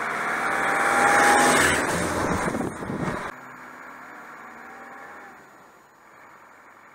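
A Land Rover Defender driving along a gravel road: engine and tyre noise that swells to a peak about a second in, then cuts off abruptly about three seconds in, leaving only a faint hiss.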